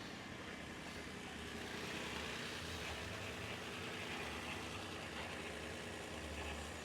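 Car engine idling steadily, just jump-started.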